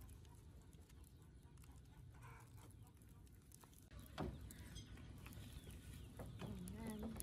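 Chickens clucking faintly, with a sharp call about four seconds in and a few more clucks near the end.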